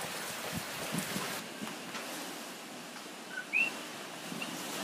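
A coqui frog gives its two-note call once, about three and a half seconds in: a short lower 'ko' then a higher rising 'kee'. Behind it is a steady hiss of wind and rain.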